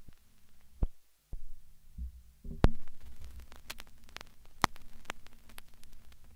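Low steady hum with scattered sharp clicks and a few heavier thumps. It cuts out completely for a moment about a second in.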